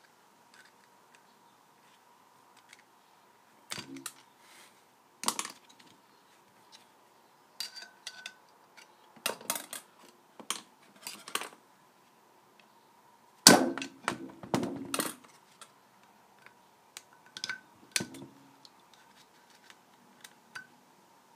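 Irregular sharp clicks, knocks and scrapes of a screwdriver and gloved fingers prying shims out from between the glued magnets of a cast flywheel lying on a sheet-metal bench. The loudest knock comes about two-thirds of the way through, and a faint steady tone runs underneath.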